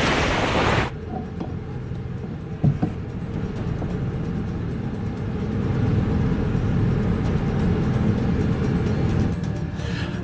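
Loud rushing water that cuts off about a second in, followed by a steady low rumble from the ship's engines, with a single sharp knock a few seconds in.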